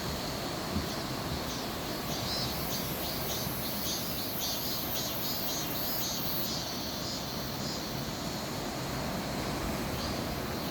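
Sea waves washing against a rocky shore, a steady rushing wash, with faint high chirping over it.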